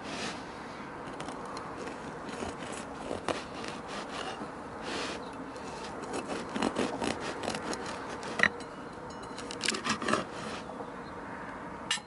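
Kitchen knife cutting through the crust of a freshly baked Turkish Ramadan pide on a wooden board, in a run of short sawing strokes with a few sharp clicks.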